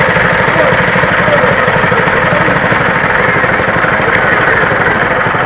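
An engine running steadily with an even low pulsing, powering a hose-spray rig, over the hiss of water jetting from the hose onto wet paving.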